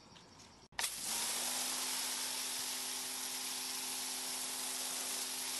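Battery-powered electric pressure washer spraying a brick wall, a loud steady hiss of water jet with a steady hum from its pump motor underneath, starting abruptly about a second in; it is running at its regular, non-boost setting.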